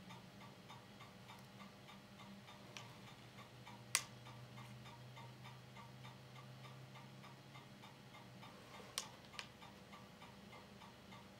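Filmstrip projector running with a faint low hum and a faint steady ticking. Sharp clicks come about three and four seconds in, the louder one at four, and then a quick pair near the end, as the filmstrip is advanced to the next frame.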